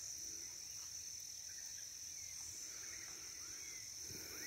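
Steady, high-pitched insect chorus, with a few faint bird chirps over it.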